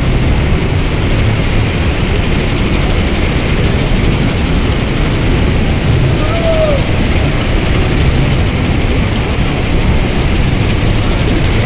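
Larson MegaWhirl spinning flat ride in motion at about half speed, a loud steady rushing drone over a low machine hum.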